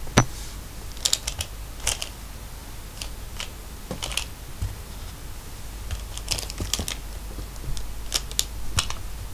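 Irregular clusters of sharp clicks and short scratches as a tabby kitten bats and pounces on a fur-covered plastic toy mouse on a woven rug. The loudest click comes just after the start.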